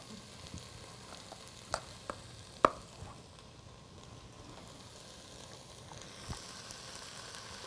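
Onions and red bell peppers sizzling gently in a sauté pan, a low steady hiss. A few sharp clicks cut through it, the loudest about two and a half seconds in.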